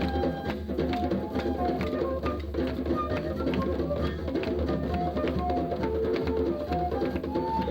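Percussion music: many quickly struck pitched notes over a steady low hum.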